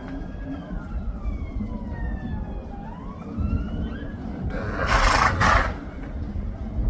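A horse coughing: a harsh, noisy double burst about five seconds in, the loudest sound here, which the uploader takes for something stuck in its throat. Behind it a siren wails, its pitch slowly rising and falling, over a low rumble.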